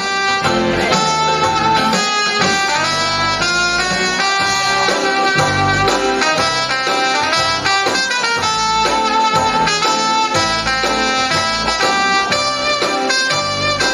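Piano accordion played through a Soltan MIDI expander, an upbeat tune with the melody over a steady, regular bass pulse.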